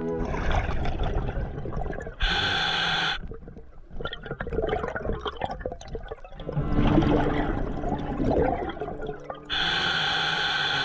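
Scuba regulator breathing underwater: the diver's exhaled bubbles gurgle and crackle, broken by the even hiss of an inhalation through the regulator about two seconds in and again near the end.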